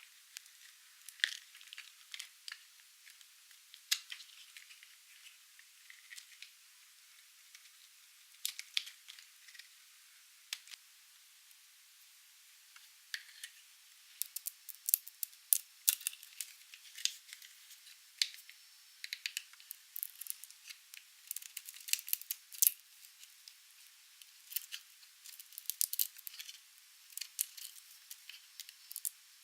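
Dry, painted soap being cut with a blade: sharp crackles and snaps, scattered at first, then coming thick and fast through the second half.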